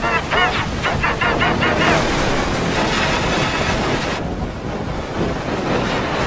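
Heavily effect-processed race audio: a race car rushing past on a speedway amid engine and crowd noise. A rapid warbling runs through the first two seconds, and the sound turns to a duller rumble about four seconds in.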